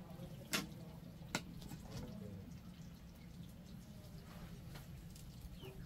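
Two sharp taps about a second apart, then a few faint clicks over a steady low background hum.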